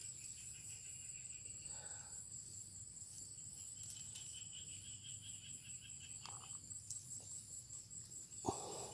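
Crickets and other insects trilling steadily, one a high unbroken trill and another a quick pulsing chirp, with a short knock near the end.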